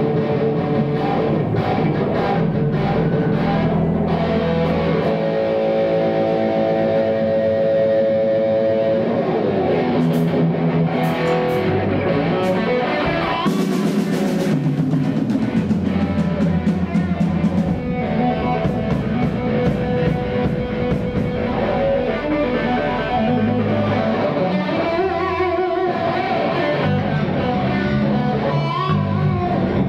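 A rock band playing live: amplified electric guitars over a drum kit, loud and continuous.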